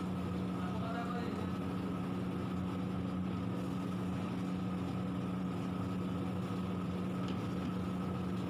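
Steady low mechanical hum with a constant drone, unchanging in level.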